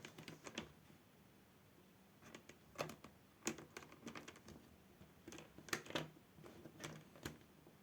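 Faint, scattered plastic clicks and taps from a laptop screen assembly being handled and pressed into the lid, a few louder clicks in the middle.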